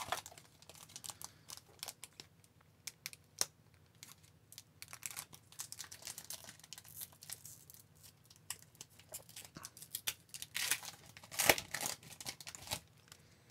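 A hockey card pack's wrapper being crinkled and torn open, with cards handled and slid apart; the crackling comes in irregular spurts, loudest near the end.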